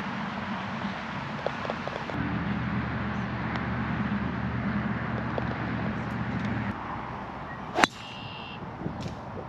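A vehicle engine hums steadily and stops about seven seconds in. About a second later a golf club strikes the ball with one sharp, solid crack and a brief metallic ring: a tee shot.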